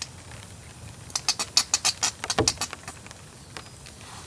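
Plastic Heinz ketchup squeeze bottle sputtering: a quick run of about a dozen short squirts and splutters as sauce and air spurt from the nozzle, lasting about a second and a half.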